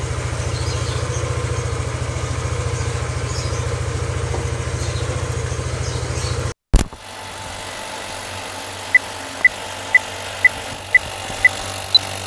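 Motorcycle engine running steadily with a low pulsing beat, cut off abruptly about six and a half seconds in. A film-countdown leader follows: faint hiss with six short beeps half a second apart, then one higher beep.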